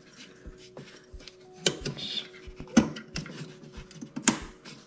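A few sharp plastic clicks and knocks as a new inline fuel filter is handled and pushed into its quick-connect fuel-line fittings on a Mercury four-stroke outboard. The clicks come about a second apart, and the loudest is near the end.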